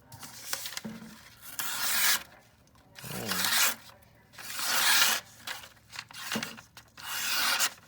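A knife blade slicing through a sheet of paper in several separate strokes, each about half a second long: a sharpness test of a new budget knife.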